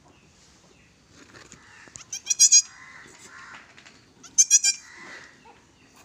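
Newborn goat kid bleating twice, short high-pitched wavering calls about two seconds apart.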